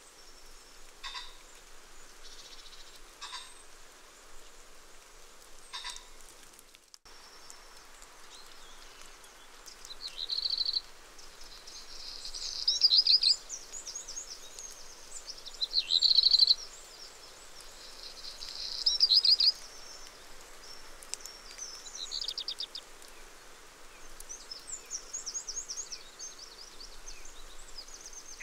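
Common kestrels calling in several bursts of rapid, shrill repeated notes, starting about a third of the way in and loudest near the middle, over a steady outdoor hiss. Before that, only a few faint ticks.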